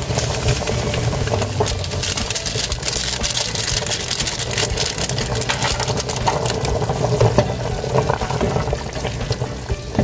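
Pot of pork sinigang broth at a rolling boil, bubbling and crackling steadily, over a constant low hum.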